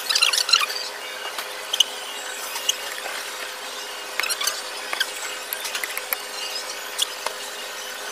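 Metal cutlery clinking and scraping against a plate while eating, in scattered sharp ticks, with brief high squeaks at the very start, over a steady background hum.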